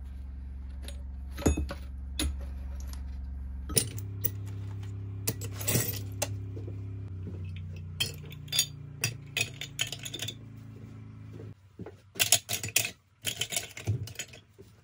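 Scrap aluminium pieces dropped and set into a crucible one after another, with repeated metallic clinks and knocks. A low steady hum underneath stops about three-quarters of the way through.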